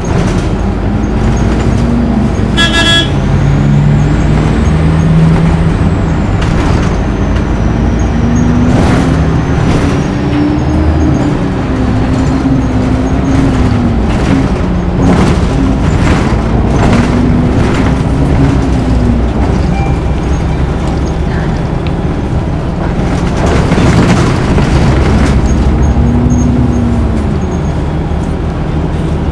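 Orion VII first-generation hybrid bus in motion, heard on board: the drive's whine rises and falls in pitch again and again as the bus speeds up and slows, over a steady engine and road rumble with knocks and rattles throughout. A short toot sounds about three seconds in.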